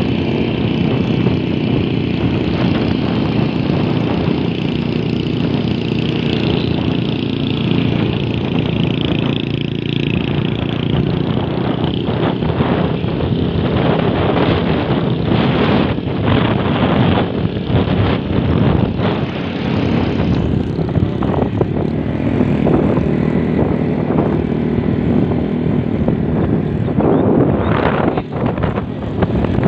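Vehicle engine running steadily on the move, with wind rushing over the microphone and gusting irregularly.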